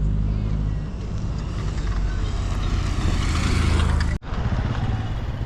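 Motor vehicle engine running with steady road noise, which drops out abruptly for an instant a little after four seconds in.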